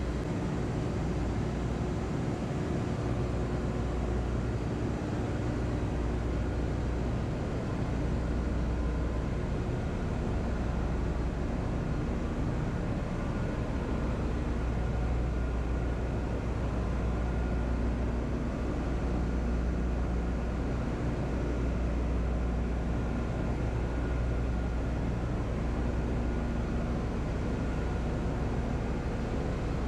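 Oil tanker's engine-room machinery running: a steady, even machine noise with a deep hum underneath and a few faint steady tones.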